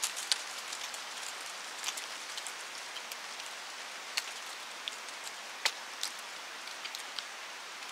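Dry autumn leaves falling from the trees in the wind, a steady hiss of wind through the foliage with scattered light ticks and pats of leaves landing on the leaf litter, like a light rain.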